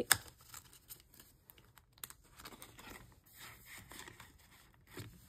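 Paper banknotes rustling and crinkling as a stack is handled and slid into a clear PVC cash envelope in a ring binder, with a sharp click at the very start and a softer one near the end.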